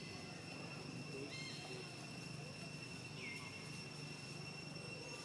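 Insects droning with a steady high-pitched tone. A short call that drops in pitch cuts across it about every two seconds, near the start, around the middle and at the end, over a low steady hum.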